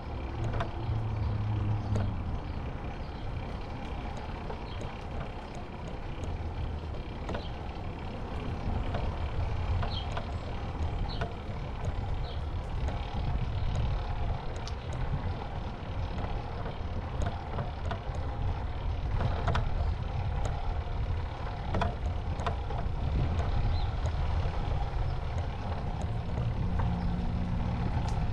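Steady low rumble of wind on the microphone and bicycle tyres rolling on a concrete path, with occasional light clicks.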